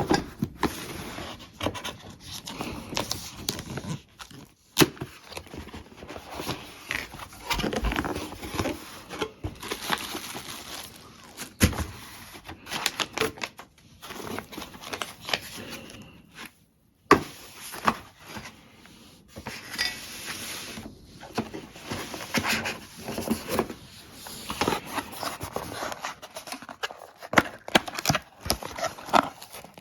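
Packaging being handled and opened: cardboard and plastic wrapping rustling, crinkling and tearing, with scattered sharp knocks and clicks as the parts are handled.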